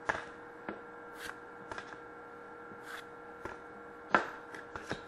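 Hockey trading cards handled and flipped through by hand: light, irregular clicks and slides of card stock, over a faint steady hum.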